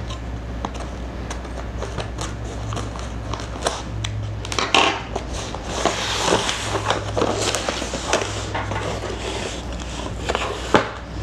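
Cardboard shipping box being opened by hand: taped seams cut and flaps pulled back, with cardboard scraping, rustling and crinkling and scattered small clicks and knocks. A steady low hum runs underneath.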